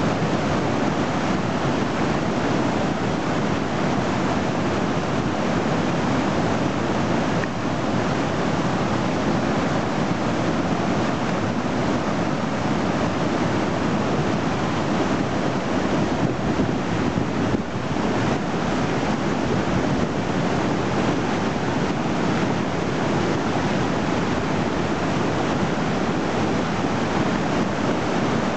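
Floodwater of the Trinity River rushing through rapids: a steady, loud rush of whitewater.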